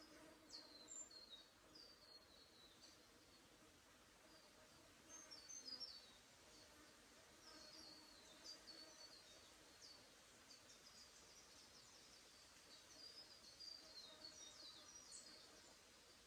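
Faint birdsong in a quiet forest: many short, high chirps, mostly falling notes, coming in clusters every few seconds. A faint, low, steady drone runs underneath.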